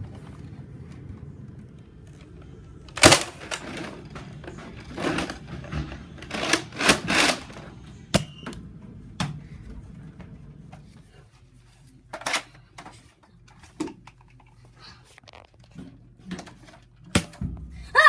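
Nerf foam-dart blasters firing in a mock battle: scattered sharp pops and clacks at irregular intervals, a few seconds apart, the loudest about three seconds in.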